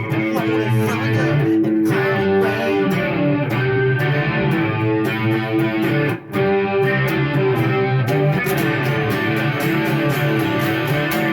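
Electric guitar played through a Marshall MG100HFX amp with its chorus effect on: picked chords and notes ringing out, with a short break about six seconds in.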